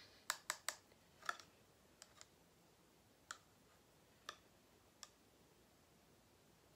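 Faint, sharp clicks of a stick or spoon knocking against a small plastic cup of acrylic paint. A quick run of clicks comes in the first second and a half, then single ones about a second apart.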